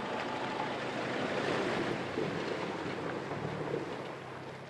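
Ford pickup truck driving through a shallow rocky river, its engine running as a low hum under the splashing rush of water around the wheels. The sound fades out near the end.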